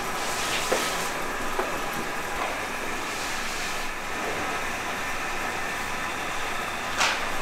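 Steady factory machinery hum with a few sharp knocks, the loudest near the end.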